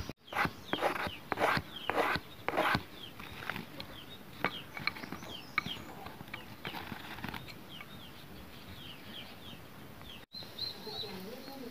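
Birds chirping over and over in short, falling calls. In the first few seconds several short scraping noises stand out loudest.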